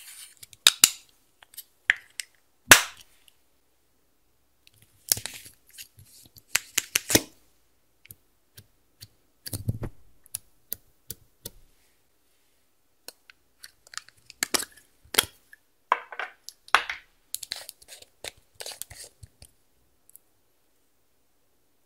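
Plastic makeup compacts, cases and tools handled over a glass dish: irregular sharp clicks and taps in short clusters, with crumbly scraping as pressed eyeshadow is dug out and broken up. The loudest is a single sharp click a few seconds in, and it falls quiet for a moment about halfway and again near the end.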